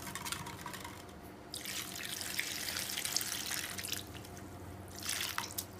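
Water poured from an aluminium pot into a steel bowl of halved bitter gourds, a steady splashing pour starting about a second and a half in and lasting about two and a half seconds, with hands swishing and rinsing the pieces in the water before and after.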